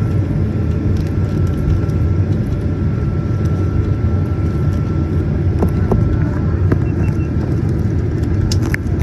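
Steady low rumble of a Boeing 737-900ER's cabin on the ground before takeoff, with a thin steady whine over it and a few faint clicks near the end.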